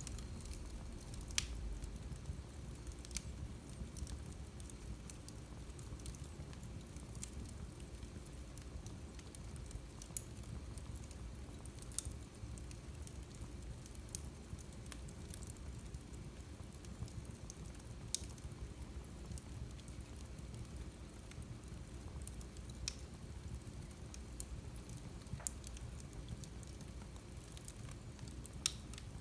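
Wood fire crackling in a fireplace: scattered sharp pops and snaps, one every second or two, over a steady low rumble of the flames.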